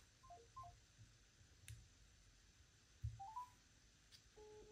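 Faint smartphone call tones: a quick falling pair of beeps near the start and a short rising three-note chime a little past halfway, with a few soft taps on the phones. Near the end a steady tone begins, as a new call starts.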